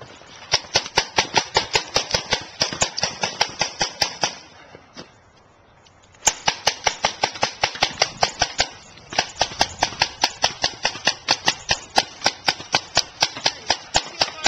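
Paintball markers firing in rapid volleys, sharp pops about six or seven a second. The shooting stops for about two seconds a little past four seconds in, then resumes and runs on.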